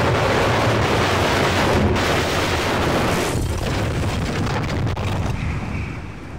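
Building being brought down by explosives, heard from inside: a loud, continuous rumble of blast and collapse that fades from about three seconds in.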